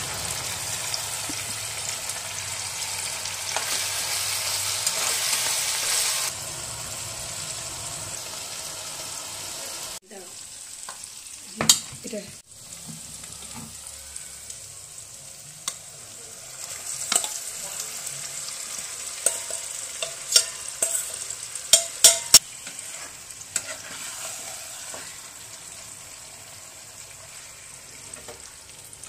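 Onion-tomato masala sizzling in hot oil in a non-stick kadai, stirred with a metal spatula that clicks and scrapes against the pan. The sizzle is loudest in the first few seconds and drops sharply about ten seconds in, after which the spatula knocks stand out over a quieter frying hiss.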